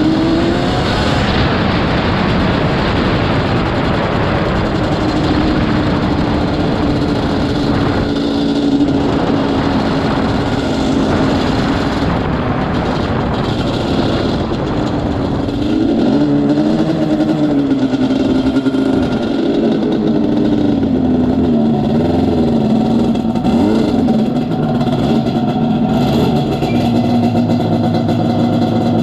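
Yamaha Banshee 350's twin-cylinder two-stroke engine running under the rider, revving up and down as the throttle is worked. Near the end it settles to a steady idle.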